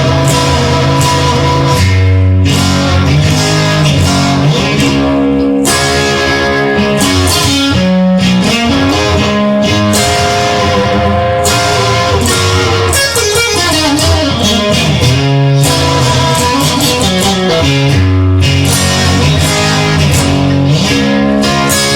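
Instrumental music led by guitar, with bass and a steady beat, and no singing.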